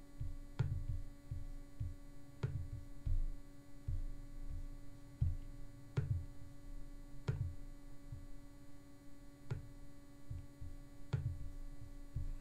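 Steady electrical hum, with soft irregular low thumps about every second or two, some carrying a faint click.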